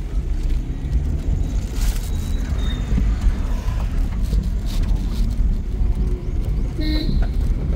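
Car driving: a steady low rumble of road and engine noise, with a short high chirp near the end.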